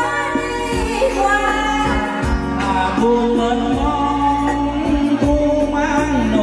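Background music: a woman singing long held notes over a steady beat.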